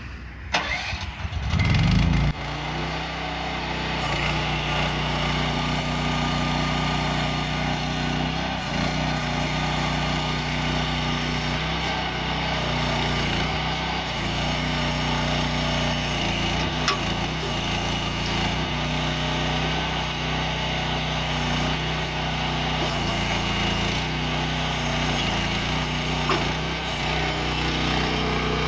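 Small gasoline engine of an AGROTK QH-12 mini excavator cranking and catching in the first two seconds, then running steadily, its pitch shifting slightly now and then. Two short clicks are heard, one past the middle and one near the end.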